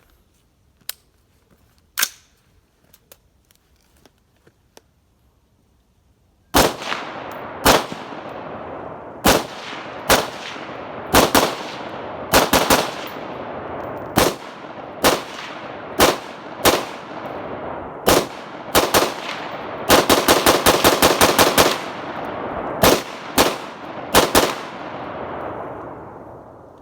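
Mossberg AR-15 rifle in 5.56 NATO firing: a few faint clicks, then single shots about a second apart, each with a long echoing tail. About two thirds of the way in comes a rapid string of around ten shots in under two seconds, then a few more single shots, and the echo fades out.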